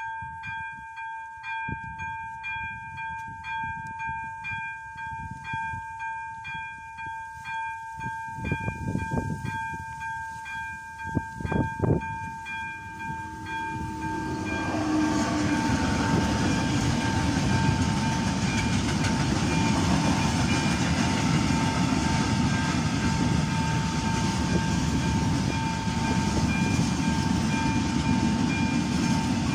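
AŽD 71 level-crossing warning bell ringing its electronic pulsing tone, about two beats a second, with two brief loud bursts about 9 and 12 seconds in. About 14 seconds in, a freight train hauled by an electric locomotive arrives, and its wagons rumble steadily past over the still-ringing bell.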